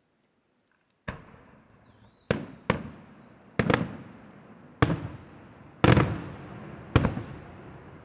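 Aerial firework shells bursting overhead: a run of sharp booms, roughly one a second and some in quick pairs, starting about a second in, each trailing off in a long echo.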